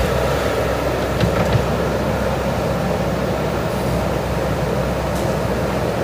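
Diesel engines of JCB backhoe loaders running steadily while the machines work, with a few short knocks about a second and a half in.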